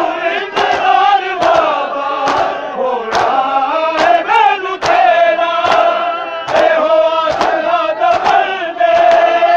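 Crowd of men chanting a noha with rhythmic matam (chest-beating): sharp hand slaps on chests land in unison a little more than once a second under the sung lines.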